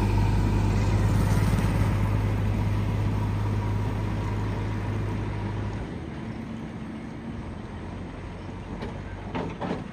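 Heavy diesel engine running steadily, its low hum fading gradually and dropping away about six seconds in, leaving a fainter rumble.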